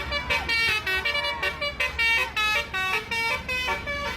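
Telolet musical air horn on a Sanjaya Trans tourist bus playing a quick tune of short, separate notes at several pitches, about three a second, over the low rumble of the bus engine.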